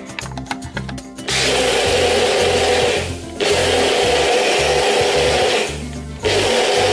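Personal bullet-style blender motor whirring as it chops a chunky mixture, switched on about a second in and run in three pulses with short stops about three seconds in and near the end. Background music with a bass line plays underneath and is heard alone before the blender starts.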